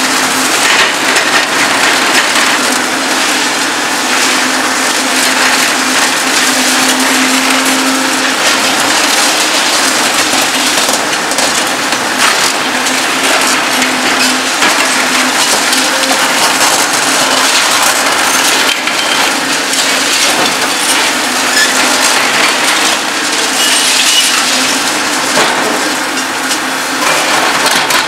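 A heavy hydraulic concrete shear on a demolition excavator crushing reinforced concrete: continuous cracking and crunching with sharp snaps of breaking concrete, over a steady hum from the machine.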